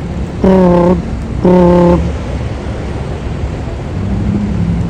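Fire alarm horn giving two loud, even blasts of about half a second each, a second apart, then stopping, leaving steady traffic noise.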